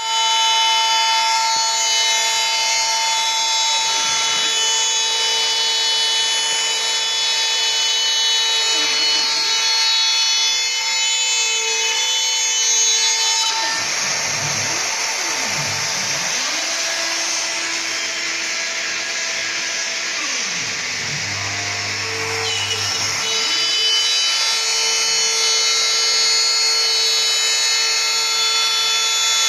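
CNC machine running a cut: a steady whine made of several high tones, with lower motor tones that dip and rise again several times midway.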